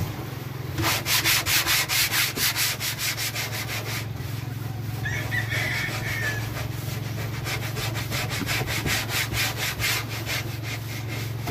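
Paintbrush scrubbing paint onto the primed wooden hull of a fishing boat in quick back-and-forth strokes, about four a second, with a pause in the middle. A steady low hum runs underneath.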